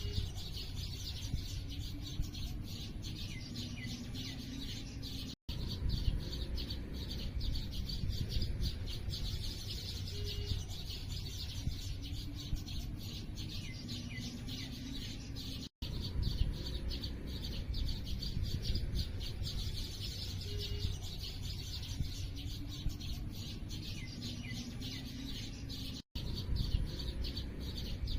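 A chorus of small birds chirping densely and continuously over a steady low rumble. The recording is a loop that repeats about every ten seconds, with a brief cut to silence at each join.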